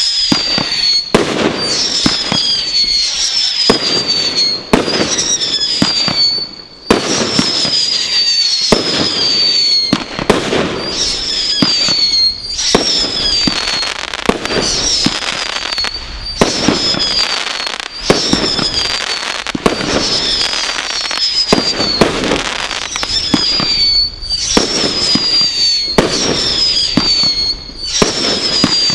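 Brothers Pyrotechnics Godfather firework display kit firing a rapid string of shots. Each shot carries a whistle that falls slightly in pitch, roughly one a second, over sharp cracks and bangs.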